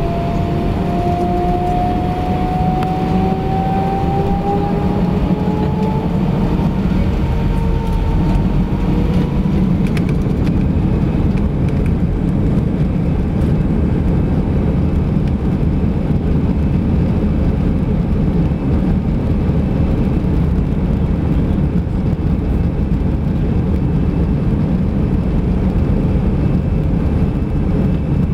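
Airbus A319 jet engines heard from inside the cabin, spooling up to takeoff thrust with a rising whine over the first several seconds, then a steady loud rumble as the airliner accelerates along the runway on its takeoff roll.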